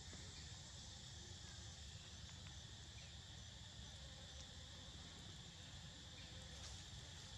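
Faint, steady insect chorus, with a low rumble underneath.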